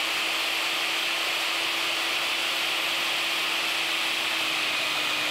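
Electric drill in a drill stand running at a steady speed, its 6 mm bit boring a hole into a 15 mm plumbing pipe end cap; a loud, even motor whine.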